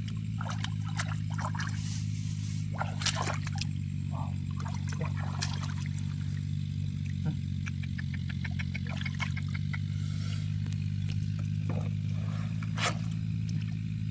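Water splashing and trickling in short bursts as hands work through shallow water in a harvested rice field, over a steady low hum.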